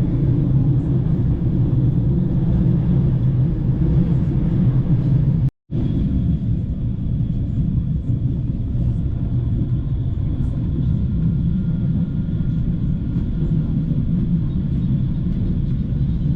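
Steady low rumble of a passenger train running along the line, heard from on board, with a faint steady whine above it. The sound cuts out for an instant about five and a half seconds in, then carries on as before.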